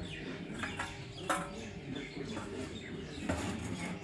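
Low background voices with a few sharp metallic clinks, the loudest about a second in and another near the end, as a long ladle knocks against the cooking pot and bowls while paye is served.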